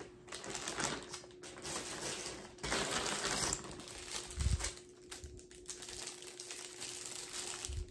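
Plastic packaging rustling and crinkling in bursts as items are handled and unwrapped, with light clicks and a soft thump about four and a half seconds in.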